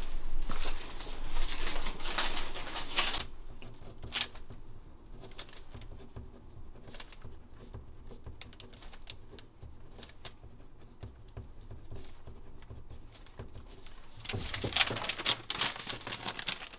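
Nylon puffer jacket rustling as the wearer moves, loudest at the start and again near the end. In the quieter middle stretch there is a faint pen scratching on paper with a few light clicks.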